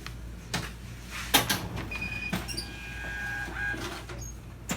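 Scattered clicks and knocks of items and money being handled at a shop counter over a steady low hum, with faint steady tones about two seconds in.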